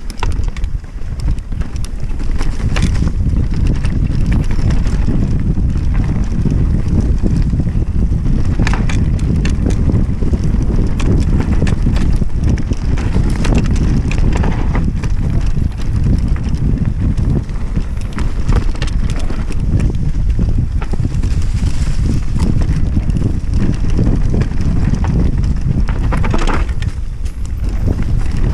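Mountain bike descending a dirt trail: steady wind buffeting on the microphone and tyre rumble, broken by frequent knocks and rattles as the bike goes over bumps.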